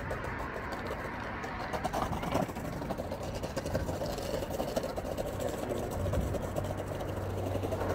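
Longboard wheels rolling over a paved walkway: a continuous rumble, with a brief louder patch about two seconds in.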